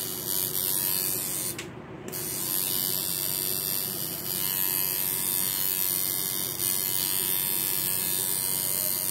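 Electric tattoo machine buzzing steadily as its needle works into the skin of a forearm, dropping off briefly about two seconds in.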